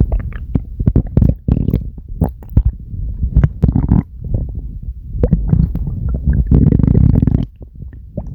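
A human stomach growling on command: a run of short gurgles and squelches, then one longer rumble that stops about seven and a half seconds in.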